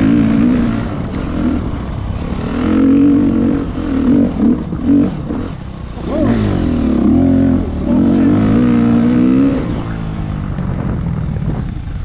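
Husqvarna dirt bike's engine revving up and down under throttle on a rough trail, its pitch rising and falling in repeated surges, then easing off near the end.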